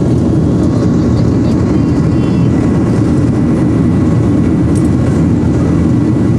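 Jet airliner cabin noise heard from a window seat during the climb-out: the engines and the air rushing past the fuselage make a loud, steady, deep roar with a faint steady whine above it.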